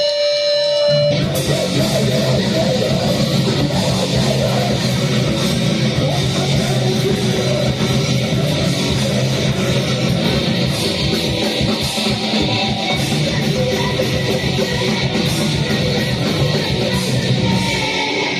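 A live band playing loud, distorted heavy music with electric guitar, bass and drums. A held ringing tone opens it, and the full band crashes in about a second in.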